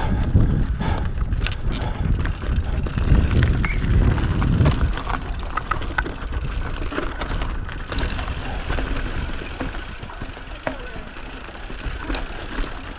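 Mountain bike rolling down a rocky dirt trail: tyres running over stones and the bike rattling, with scattered clicks. A heavy rumble dominates the first five seconds, then eases as the riding gets calmer.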